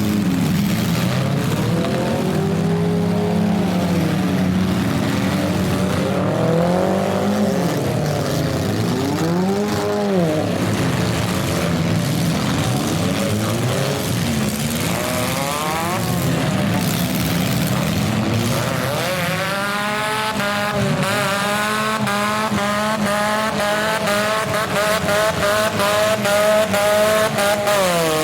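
Several compact car engines revving up and down as the derby cars push and ram. From about two-thirds of the way in, one engine is held at high revs with a fast-wavering pitch.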